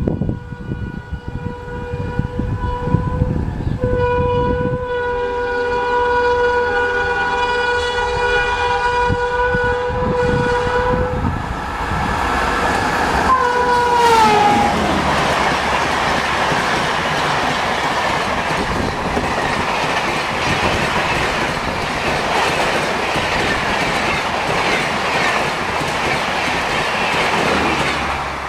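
Indian Railways locomotive horn held in one long chord for about twelve seconds as the express approaches, its pitch sliding down as the locomotive passes. The coaches then rush by with steady wheel-on-rail clatter until the sound drops away at the very end.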